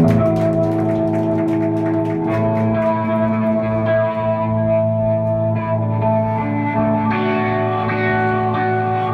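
Live band's electric and acoustic guitars strike up a slow song together, with long held chords that ring out and change only every few seconds.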